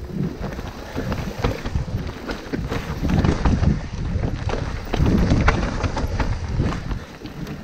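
Mountain bike being ridden over a rough trail: tyres rumbling, with frequent irregular clacks and rattles from the bike and wind buffeting the microphone.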